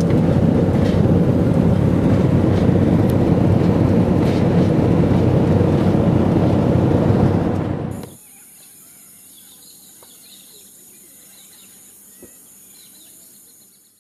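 Loud steady road and engine noise inside a car travelling at highway speed. About eight seconds in it cuts off to a much quieter steady high insect drone with faint bird chirps, which fades out at the end.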